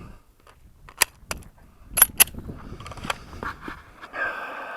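Sharp metallic clicks and clacks of a Smith & Wesson M&P9L pistol being loaded and made ready, with a loud pair of clacks about two seconds in like a slide pulled back and let go, then softer handling clicks and a brief rustle near the end.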